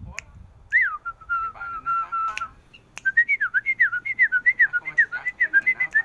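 Caged bulbul singing clear whistled notes: a falling glide, then a held note, then from about halfway a quick run of short swooping whistles, several a second. A few sharp clicks come in between.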